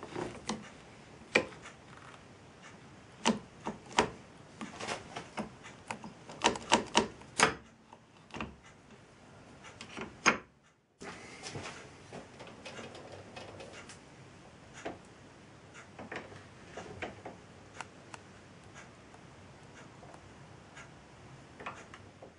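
Irregular sharp metallic clicks and knocks from a Myford metal lathe's saddle and cross-slide handles and levers being worked by hand. They are fairly loud and frequent for the first half, then after a break about eleven seconds in they come fainter and more sparsely.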